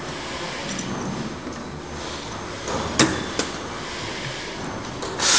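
CNC spring-forming machine running as it bends wire into a sprinkler spring: a steady mechanical whirr with a sharp metallic click about three seconds in, a lighter one just after, and a louder, longer clack near the end as the tool slides strike.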